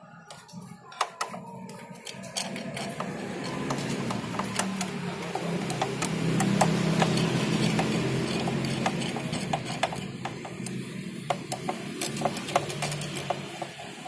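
Screwdriver working screws in the sheet-metal shield of an all-in-one PC, with many small clicks and scrapes of metal on metal. A steady low hum underneath swells through the middle and fades near the end.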